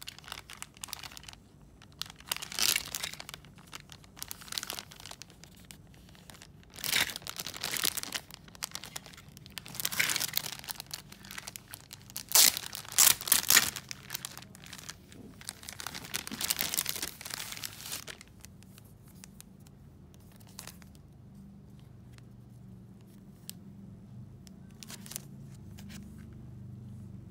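Clear plastic packaging bag crinkling and tearing as hands open it, in repeated bursts for most of the time. Near the end it goes quieter, with a few small clicks over a faint low hum.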